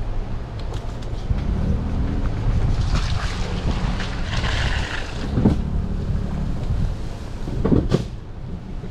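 Toyota Tundra pickup rolling along a rough dirt trail: a steady low engine and tyre rumble with wind buffeting the microphone. A rushing hiss rises from about three to five seconds in, and two sharp knocks come about five and a half and eight seconds in.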